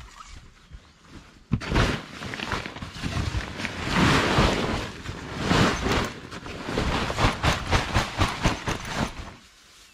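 Loose soil and small stones poured out of a bag onto a heap, a gritty rushing patter of many small grains. It starts about a second and a half in and stops just before the end.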